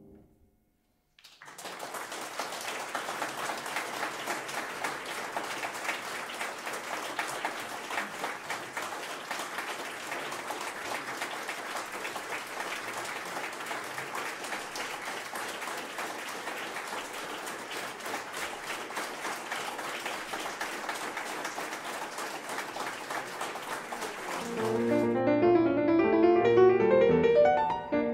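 Audience applauding, starting about a second in and lasting over twenty seconds. Near the end a grand piano starts playing.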